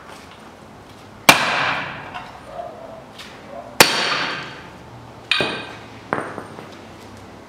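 Sledgehammer blows on a hardened 36 mm socket used as a drift, knocking the old front hub bearing out of a Hyundai Accent's steering knuckle. Four ringing metal strikes, the first two loudest and spaced a couple of seconds apart, the last two closer together.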